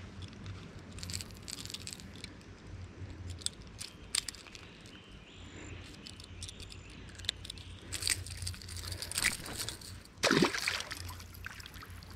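Creek water splashing and trickling around a wading angler, with scattered small clicks and knocks of handling. About ten seconds in comes a short, louder rush of sound.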